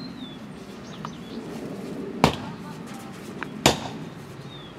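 Wooden-handled shovel being driven into lawn soil, two sharp strikes about a second and a half apart.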